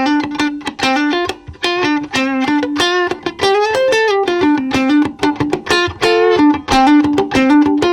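Guitar playing a quick run of separate picked notes, several a second, in an A/B comparison of the Mooer Yellow Comp compressor pedal, an optical-style compressor.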